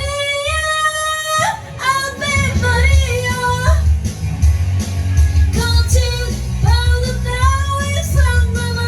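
A woman singing long held notes with vibrato over a karaoke backing track with a heavy bass line.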